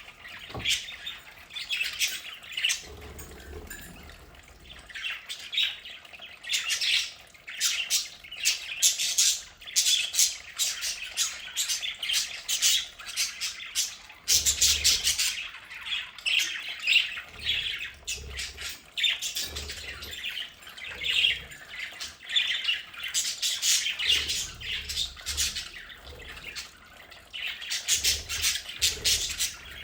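A flock of budgerigars (budgies) chattering, with many quick chirps and squawks overlapping without a break.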